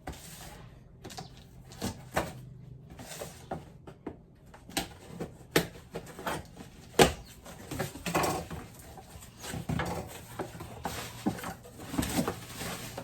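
Scattered clicks and knocks as cookware pots, lids and their packaging are handled and unpacked, with a sharper knock about seven seconds in.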